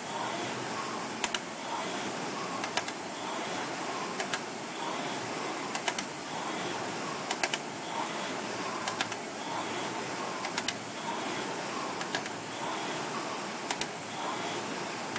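Concept2 air rower worked at a hard pace: the fan flywheel's whoosh swells with each drive stroke, about every second and a half, with a sharp clack at each stroke.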